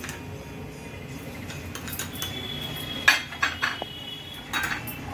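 Metal spoon scraping and clinking against glass bowls as cornflour is spooned out. Sharp clinks come about three seconds in and again near the end.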